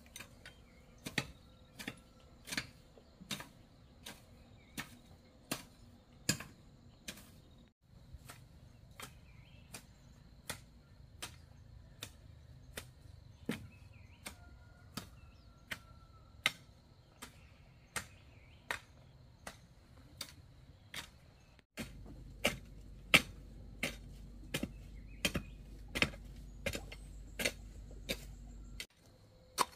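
A hand tool striking over and over in a steady rhythm, about three sharp knocks every two seconds.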